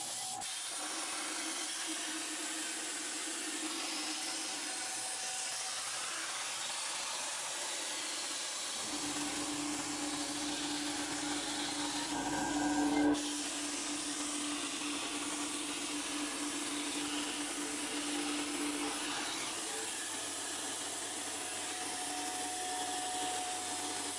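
Plasma cutter arc hissing steadily as the CNC torch cuts through steel plate. About nine seconds in, a steady low hum joins the hiss, and it fades out again some ten seconds later.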